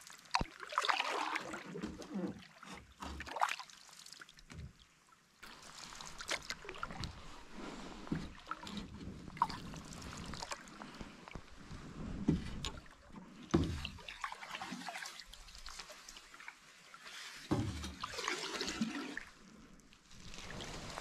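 Wooden-bladed canoe paddle dipping and pulling through calm lake water, a stroke every few seconds, with water trickling off the blade between strokes.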